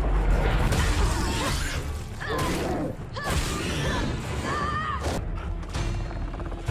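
Movie fight-scene sound effects: a dense run of hits, whooshes and clatter with short, high, bending cries, over a music score and a low rumble.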